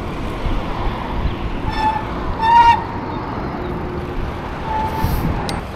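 Street traffic noise from passing cars, with two short high-pitched tones about two seconds in and a fainter one near the end.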